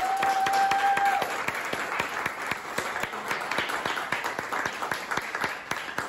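A small audience applauding, dense clapping that gradually thins and fades, with a short whistle-like tone about a second long at the start.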